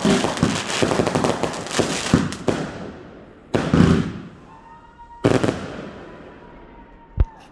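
Fireworks going off: a dense run of rapid bangs and crackling for about two and a half seconds, then two more separate bursts that die away, and one last short sharp bang near the end.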